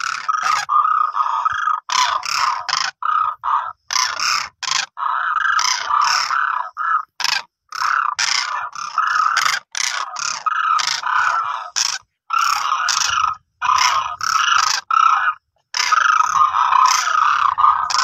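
Cranes calling: many croaking calls close together, repeated again and again with short breaks between bursts.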